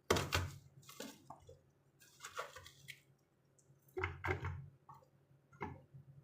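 Onion being cut and handled for a blender of carrots: a few irregular soft knocks and squishy thuds, with a short rustle in the middle.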